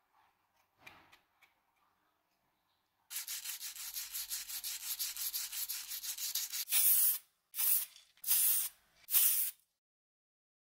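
Sandpaper rubbed by hand over hardened metal filler on a padlock body. It starts about three seconds in with quick short strokes, about seven a second, then turns to four slower, louder full-length strokes.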